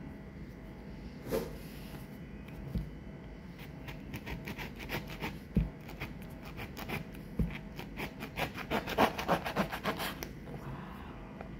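A knife sawing through the rind of a yellow passion fruit: quick rasping strokes, several a second, thickest in the second half. A few dull knocks come in between.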